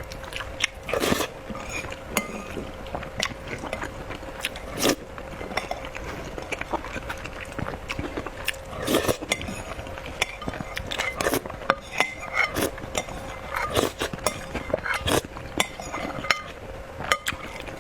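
Close-up eating sounds from a mouthful of soupy rice: wet chewing and lip smacking, with a spoon clicking and clinking against the bowl every second or so. A faint steady hum runs underneath.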